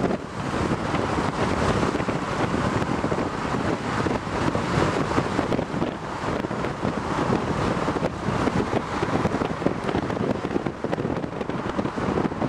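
Wind buffeting the microphone over the steady engine and tyre noise of a car driving along a road at speed.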